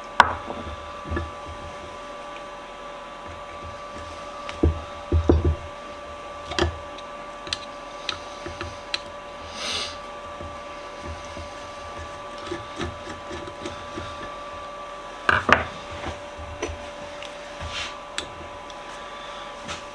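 Scattered metallic clicks, knocks and scrapes of hand tools working a tight set screw out of a bench vise, the sharpest knocks right at the start and about fifteen seconds in, over a steady background hum.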